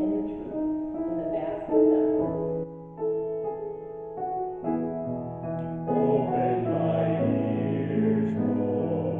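Piano accompanying a cantor singing the responsorial psalm, slow held notes, the music growing fuller about six seconds in.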